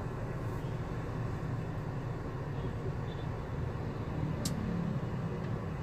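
Steady low rumble of a car heard from inside its cabin while it is driven, with a single short click about four and a half seconds in.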